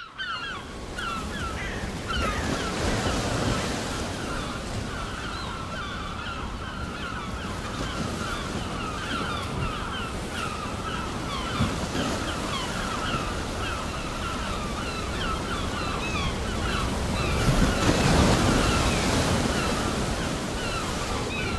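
Ocean surf: waves breaking and washing steadily, with a bigger surge swelling up about three quarters of the way through. Many short, rapid cries from a flock of birds sound over the surf.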